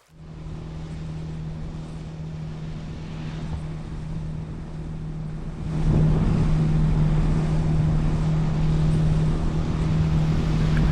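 A sailing catamaran's diesel engine running steadily under way, a constant hum, with wind on the microphone and rushing water. It gets louder about halfway through.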